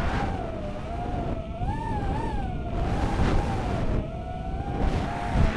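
Racing quadcopter's four Racerstar BR2306S 2700KV brushless motors with three-blade props whining, heard through the onboard camera. The pitch wavers up and down with the throttle. Heavy wind rush on the microphone runs underneath.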